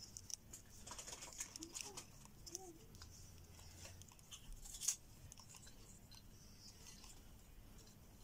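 Faint handling noise of a scissor-arm microphone stand and its shock mount being fitted together by hand: scattered small clicks and rustles, with one sharper click about five seconds in.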